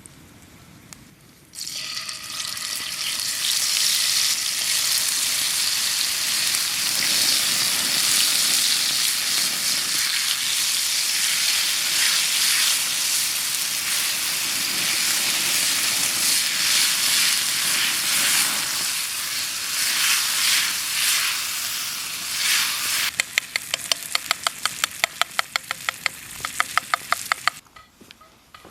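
Food frying in a pan over a campfire: a loud, steady sizzle that starts suddenly. Near the end, a fast run of clicks, about five a second, like a utensil working in the pan, before the sound stops.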